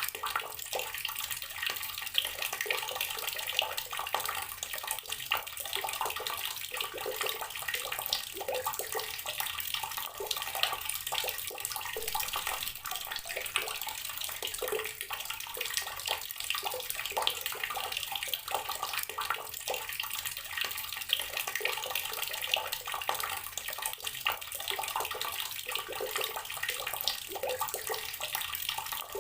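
Water tap running steadily, its stream splashing with a constant hiss.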